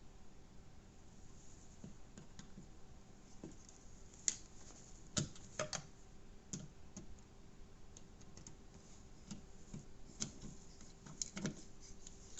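Faint, scattered small clicks and taps from a Leatherman Rev multi-tool being handled, its screwdriver bits folding and turning.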